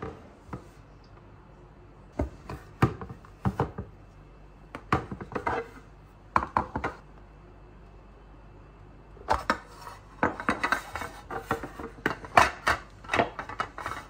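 Clicks, knocks and light clatter of a food container with a wooden lid being handled and opened on a countertop, in several clusters, busiest near the end.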